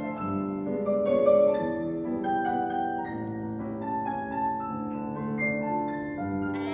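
Recorded solo piano accompaniment for a ballet barre exercise, a melody over held chords.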